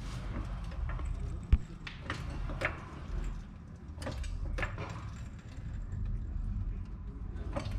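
Scattered light metallic clicks and knocks, with one sharper knock about one and a half seconds in, over a low steady rumble, as a floor jack raises the rear suspension arm to seat the air spring against its mount.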